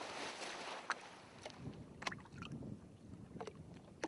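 Water washing and lapping, with a few sharp knocks scattered through it.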